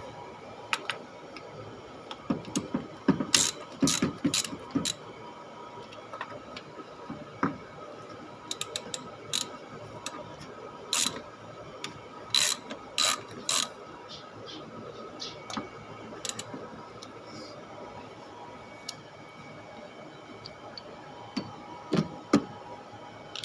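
Socket ratchet clicking in short spells, with sharp metallic clicks and clinks, as the valve cover bolts are undone.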